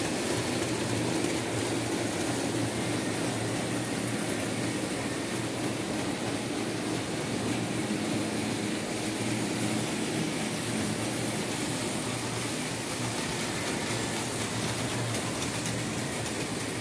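Märklin H0 model trains running on the layout: the steady whir of the small electric locomotive motors and the rolling of metal wheels on metal track, with a low steady hum underneath.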